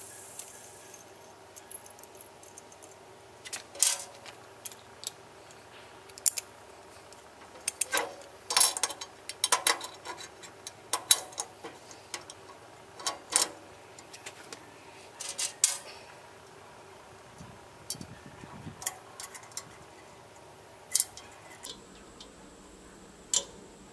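Small metal hardware (wing nuts, lock washers and a handle) clinking and tapping against a steel smoker firebox lid as the handle is fitted and fastened by hand, in scattered sharp clicks with quiet gaps between.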